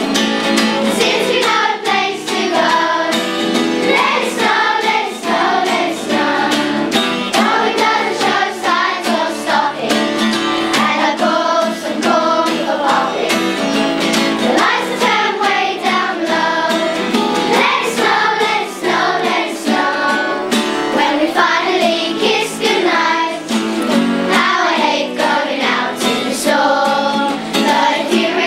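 Children's choir singing a Christmas carol together.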